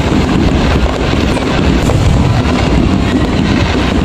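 Fireworks shells bursting in rapid succession, the booms running together into a steady, loud, low rumble.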